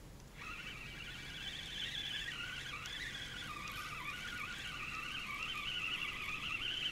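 Spinning reel on a feeder rod being cranked to reel in, its gear whine wavering in pitch with the speed of the crank; it starts about half a second in.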